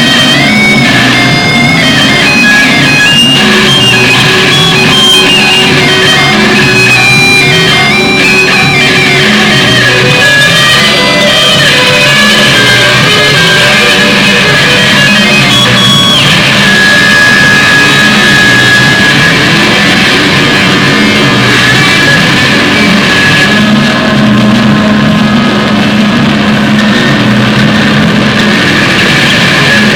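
Loud, dense rock music with guitar, a lead line stepping through high notes over a steady low accompaniment.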